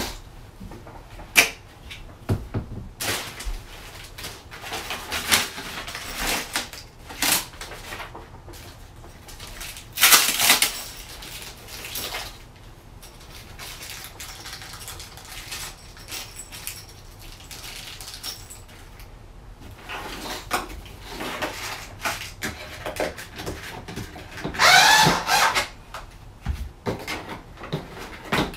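Plastic packaging rustling and parts being handled, with scattered clicks and knocks as pieces are unpacked and fitted together. Near the end comes a short pitched sound that bends up and down.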